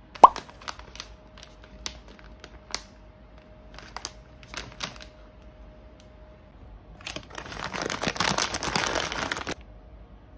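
A scattering of sharp clicks and taps, the loudest right at the start. Then a loud spell of crinkling, about two and a half seconds, as a foil-lined paper chip bag is opened and rustled.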